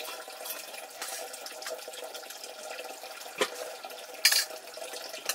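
Water running steadily, with two short sharp clinks in the second half.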